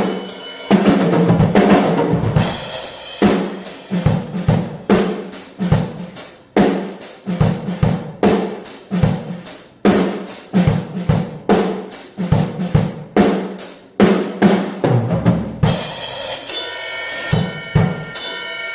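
Acoustic drum kit played raw and unmixed: kick drum, snare and cymbals in a steady groove, with washes of cymbal about a second in and again near the end.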